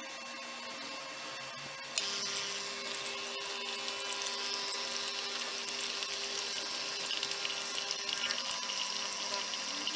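De'Longhi ESAM1000SJ espresso machine's electromagnetic pump switching on about two seconds in and buzzing steadily, with water hissing as it runs through the machine.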